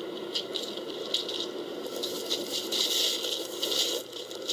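Dry bean pods from a tree rattling and crackling as they are handled and sorted, in irregular bursts that grow denser after about two seconds.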